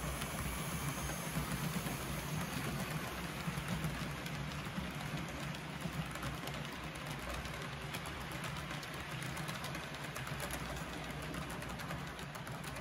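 HO scale model freight train rolling past: a steady hum and rumble from the locomotive and wheels on the track, with fine clicking throughout.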